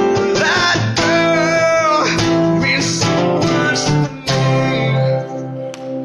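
A man singing live to acoustic guitars. His voice stops about five seconds in while the guitars keep ringing.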